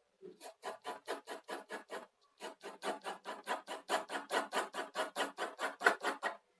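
Pencil scratching on drawing paper in quick, even back-and-forth shading strokes, about five a second, with a brief pause about two seconds in.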